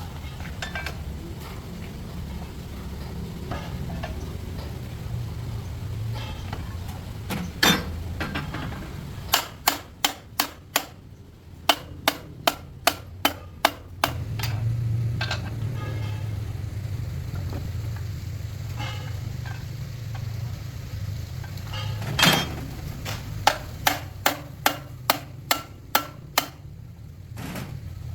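Hammer blows on metal in quick runs of several sharp strikes, about three a second, over a steady low hum.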